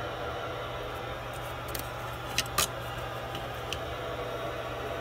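A steady low hum over background hiss, with a few sharp clicks about halfway through.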